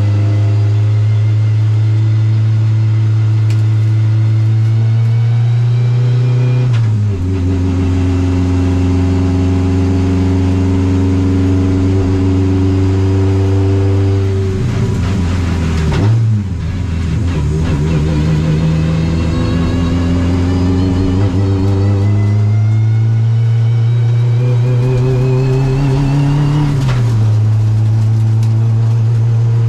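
Subaru rally car's engine heard from inside the stripped cabin, pulling slowly up through the revs under light load. Its pitch drops sharply with an upshift about a quarter of the way in and again near the end, and falls away and briefly breaks up around the middle as the driver lifts off.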